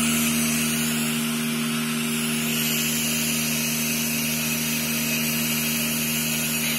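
Fully automatic nylon cable tie machine running idle: a steady hum with a hiss over it, and no tie being fired.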